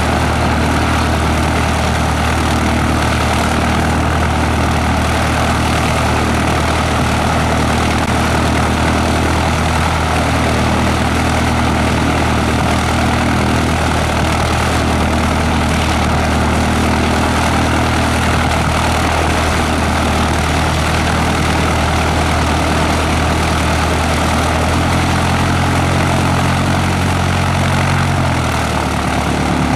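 A de Havilland DHC-1 Chipmunk's four-cylinder de Havilland Gipsy Major engine idling steadily on the ground, propeller turning. The engine note shifts briefly near the end.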